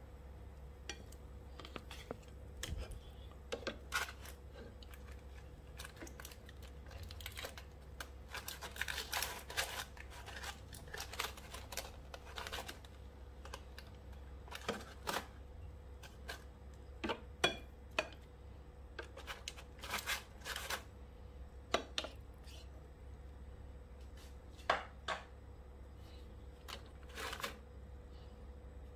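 Kitchen tongs clicking and scraping against aluminium foil and the air fryer basket as salmon pieces are turned over, with foil crinkling. Irregular clicks and short scrapes, busiest through the middle.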